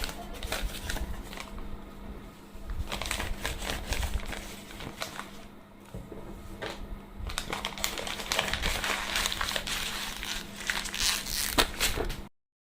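Silicone pop-it fidget toy having its bubbles pressed: rapid, irregular pops and crinkly clicks, with a quieter spell in the middle, over a faint steady hum, cutting off abruptly near the end.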